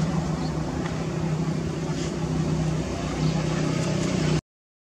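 An engine running steadily at an even pitch, then cutting off abruptly to silence shortly before the end.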